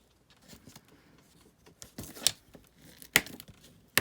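Scissors cutting paper: a few sharp snips about two, three and four seconds in, with faint paper rustling between.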